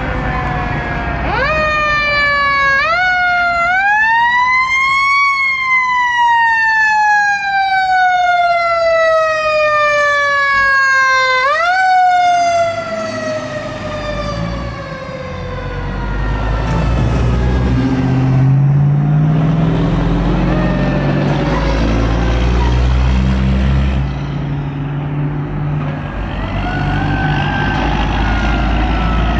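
Fire truck siren wailing: it climbs in a couple of quick steps to a peak, slides slowly down, jumps up again and then winds down and fades. After that a heavy diesel fire engine rumbles past, with another siren faint near the end.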